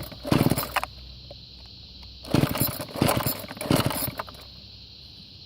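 McCulloch two-stroke string trimmer being pull-started: about four quick yanks of the recoil starter cord, each a short rattling whirr, without the engine catching. The owner thinks the fuel system is sucking air and the fuel lines need redoing.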